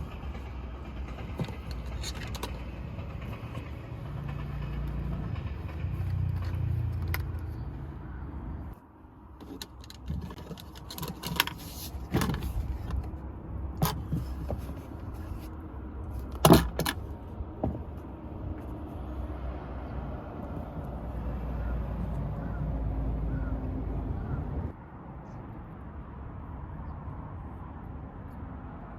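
Steady low vehicle rumble, broken about nine seconds in by a run of sharp clicks and knocks, the loudest a little past halfway. The rumble returns afterwards and drops to a quieter hum near the end.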